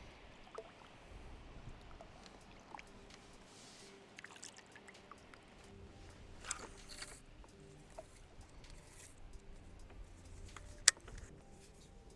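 Faint water lapping and small knocks and clicks of gear being handled in a small boat, with one sharp click about eleven seconds in.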